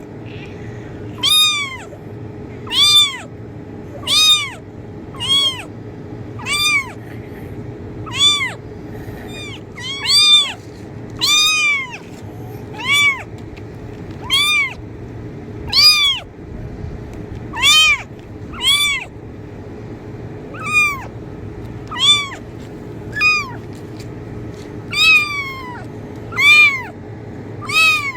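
A kitten meowing over and over, about twenty short high meows, each rising then falling in pitch, roughly one every second or so, over a steady low background hum.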